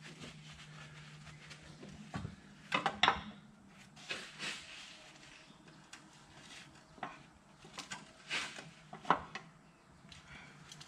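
Hand tool clinking and scraping against the metal fitting of a radiator hose, with scattered sharp metallic clicks and short rattles. The loudest cluster comes about three seconds in, and single sharp clicks come near eight and nine seconds.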